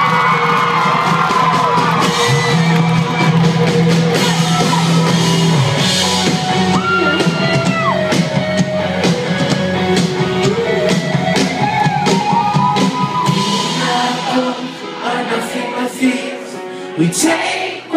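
A live rock band playing, with guitars and a sung lead vocal, heard from within the audience, with shouts and whoops from the crowd. About three seconds before the end the bass drops away and the music gets quieter.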